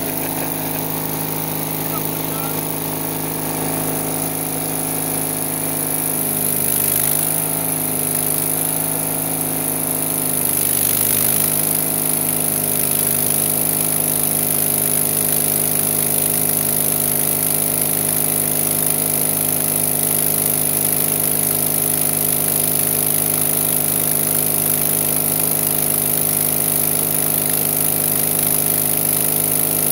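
Electric arc welding on a steel truck frame, with the arc crackling steadily from about eleven seconds in over a constant machine hum.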